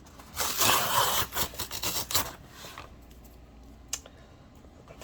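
Small mail package being opened by hand: about two seconds of ripping and rustling of the wrapping, then quieter handling with a single click near the end.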